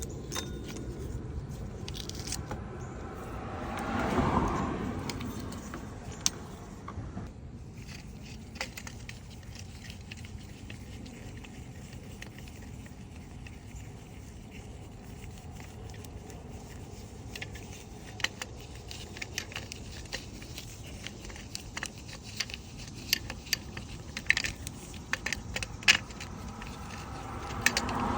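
Scattered metallic clicks, clinks and scrapes of hand tools at work on a car engine, over a steady background hum. A passing car swells and fades about four seconds in and again at the end.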